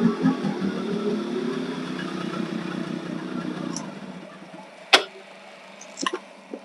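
Yamaha RX 135 two-stroke single-cylinder motorcycle engine running at low speed as the bike pulls in and stops, then switched off just under four seconds in. About a second later comes one sharp click, followed by a few lighter clicks near the end.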